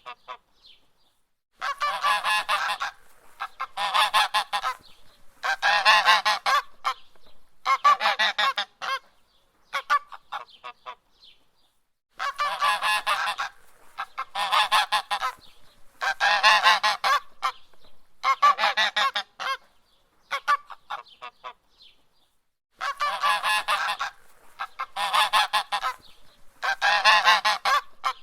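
Goose honking: loud, harsh honks each lasting about a second, coming roughly every two seconds in runs of three or four. Each run is followed by a few fainter short calls and a pause of about a second.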